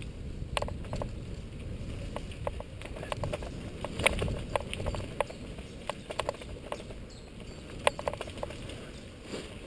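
Mountain bike rolling fast down a dirt forest trail: a steady low rumble of tyres on the ground, broken by irregular sharp clicks and rattles as the bike jolts over bumps and roots.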